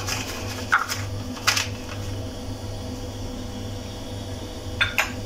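A metal spoon clinking lightly against a glass bowl a few times as custard powder is spooned into it, two of the clinks close together near the end, over a steady low hum.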